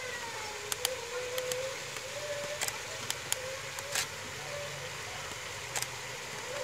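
Cauliflower and greens tipped into a large aluminium cooking pot, with a few short sharp clinks of the metal ladle and colander against the pot, the loudest about 4 s and 6 s in. Under it runs a steady background drone with a faint wavering tone.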